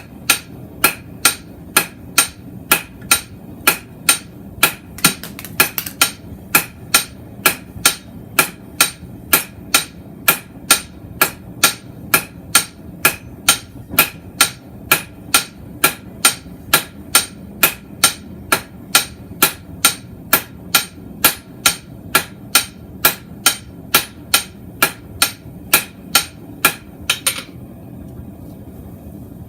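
Hand hammer striking a hot square mild-steel bar on an anvil at a steady pace of about two ringing blows a second, drawing out a taper. The hammering stops shortly before the end.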